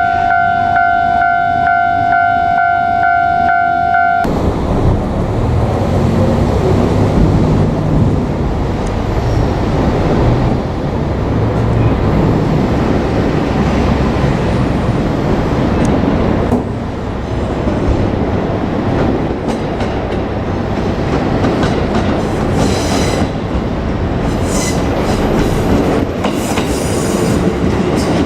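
A level-crossing warning bell rings steadily for the first four seconds, then cuts off abruptly. After that a JR Kyushu 787 series electric train runs past with a continuous rumble and its wheels clacking over the rail joints, with some sharper high squeals near the end.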